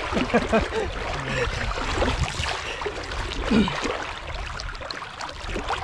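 Sea water sloshing and splashing around legs wading waist-deep through shallow, choppy water.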